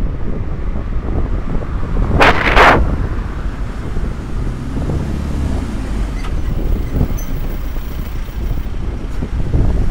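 Wind buffeting a GoPro's microphone while riding an electric bike through traffic, a steady low rumble. A sharp hiss lasting about half a second comes around two seconds in and is the loudest sound.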